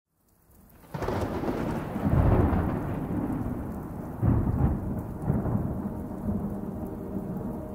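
Rain hissing steadily, with two heavy rumbles of thunder about two and four seconds in, as a sound-effect intro. Soft held tones of an ambient music pad come in under the rain in the second half.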